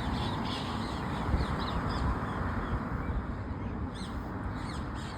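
A flock of parakeets calling, many short, harsh screeches overlapping, over a steady low background rumble.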